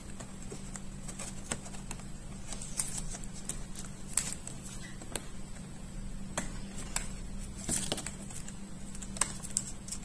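Small irregular clicks and ticks of fingers handling a laptop's battery cable connector as it is pushed back into its motherboard socket, over a steady low hum.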